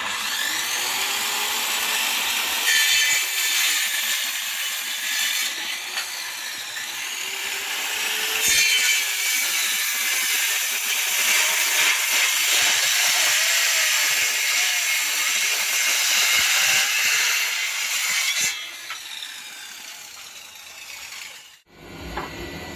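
Handheld electric circular saw ripping along a rough cedar board, its blade running steadily through a long cut and easing off for the last few seconds.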